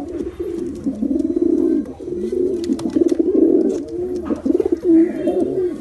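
Domestic pigeons cooing continuously, with several rolling, warbling coos overlapping one another.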